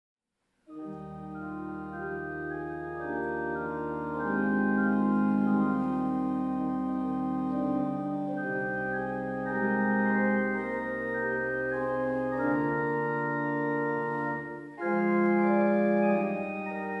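Organ playing slow music of long, held chords, starting about half a second in, with a brief break in the sound just before the end.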